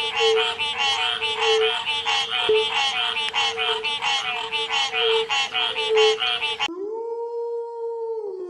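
A dense run of rapid, repeated animal calls, several a second, that cuts off abruptly about two-thirds through and gives way to a long, steady howl.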